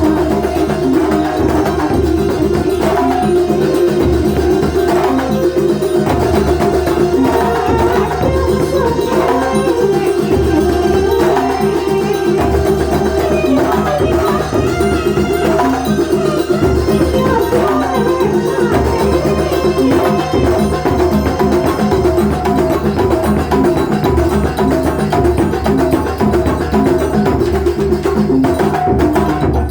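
Banyuwangi kuntulan ensemble playing live: dense, driving drumming and percussion over a steady held tone, without a break.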